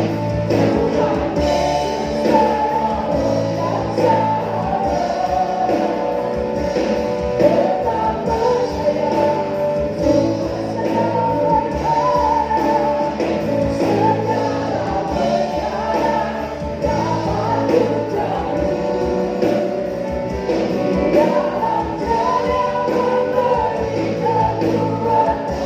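Choir singing an Indonesian worship song with a band accompaniment.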